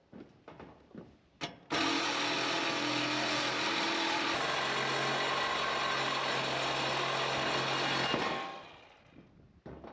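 Cordless power tool running steadily for about six seconds, then winding down, with a few short knocks before it starts.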